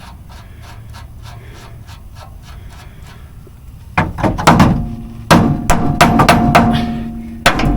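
Hammer blows on a steel steering-linkage part that is stuck in its seat, knocking it loose. After a few quiet seconds with faint small clicks, about eight sharp ringing metal strikes follow, two to three a second.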